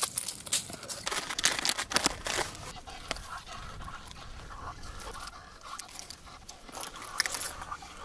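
Slotted ice scoop scraping slush and ice chips out of a freshly drilled ice-fishing hole, a quick run of crunches and clicks in the first couple of seconds. Then a plastic groundbait bag crinkles as bait is poured into a feeder cup.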